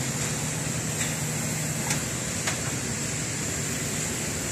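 Mitsubishi L200's engine running steadily with a high whine and a few faint ticks. The owner's complaint is a misfire.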